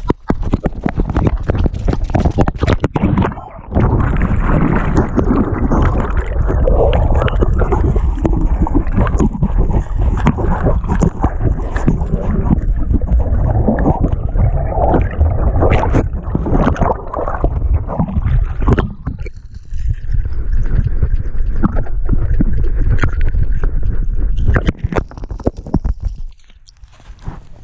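Splashing and gurgling of river water against a dog's chest-mounted action camera as the dog runs in and swims, with rumble and knocks of the camera rubbing and bouncing on the microphone. It drops off sharply near the end as the dog comes out onto the bank.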